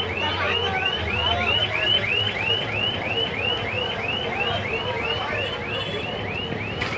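An electronic alarm tone repeating a quick rising-then-falling chirp about three times a second, over faint crowd chatter.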